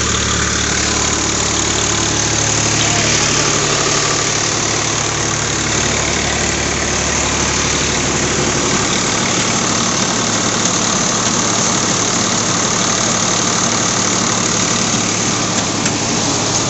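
Swaraj 735 FE tractor's three-cylinder diesel engine running steadily under load, driving a rice huller, together with the huller's dense grinding noise as paddy goes through and milled rice pours out. The engine's low hum drops back about halfway through, leaving the huller's noise on top.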